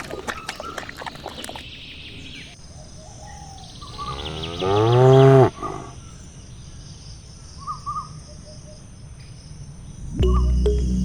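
A cow mooing once: one long, loud call about four seconds in that rises and then falls in pitch. Light clicking at the start, and music begins near the end.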